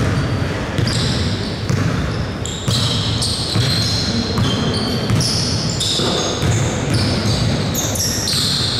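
Basketball game sounds echoing in a large gym: the ball bouncing on the court again and again, with short high-pitched squeaks scattered through.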